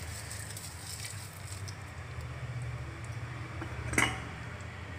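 Kitchen sounds over a steady low hum, with one sharp metallic clink about four seconds in, a steel ladle knocking against the steel pan of stew.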